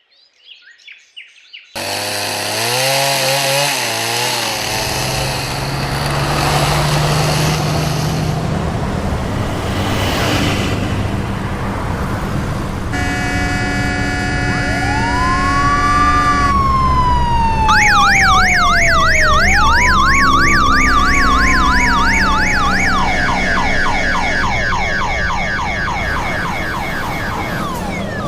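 Steady street noise, then from about halfway an emergency vehicle's siren: a slow rising and falling wail that changes near the middle to a fast, repeated yelp, preceded by a short steady horn-like tone.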